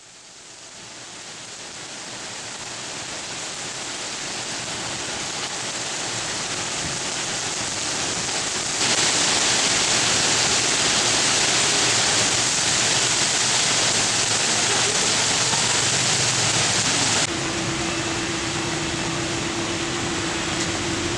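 Heavy rain pouring down, a steady hiss that fades in over the first few seconds and gets louder about nine seconds in. Near the end it eases a little and a faint steady hum sounds under it.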